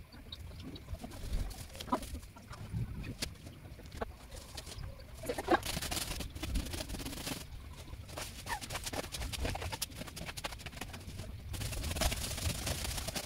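A plastic fan rake scraping and dragging over dry dirt and leaves in strokes, with scattered clicks and two longer scratchy sweeps, the second near the end. Bird calls, possibly chickens, come in here and there.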